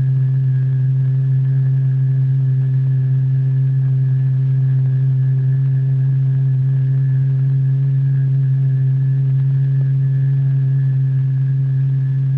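A steady, loud low tone with a few overtones above it, holding one pitch without change. It is the drive note that sets the material vibrating in a cymatics experiment.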